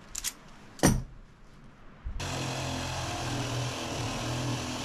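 A couple of clicks and a sharp knock, then a cordless drill starts about two seconds in and runs steadily, boring a 1 1/4-inch hole in wood with a spade bit that is not sharp.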